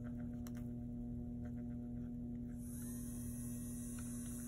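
Jiasheng electric nail drill control box humming steadily while plugged in, one even electrical hum with faint overtones. The owner suspects the unit is defective.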